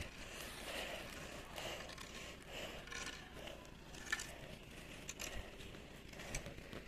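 Faint outdoor background with a few light clicks and rustles from the phone being handled and moved.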